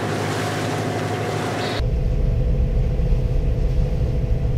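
Sailboat's engine running under way on calm water, a steady drone with the rush of wind and water and a faint steady hum in it. About two seconds in the sound changes abruptly to a louder, deeper rumble.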